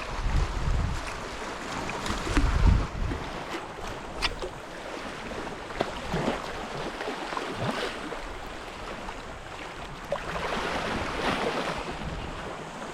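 Sea water washing against a rocky shore, with wind gusting on the microphone in the first few seconds and a louder wash of water near the end.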